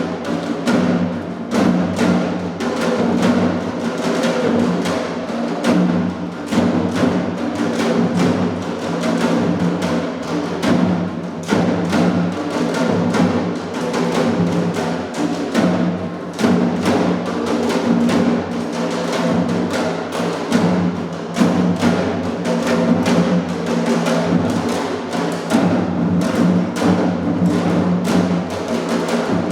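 Music driven by fast, dense drumming: a steady run of evenly spaced drum strokes over a sustained low tone.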